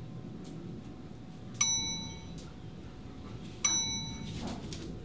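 Two bright, bell-like metallic dings about two seconds apart, each struck sharply and ringing out for under a second, over a faint steady hiss.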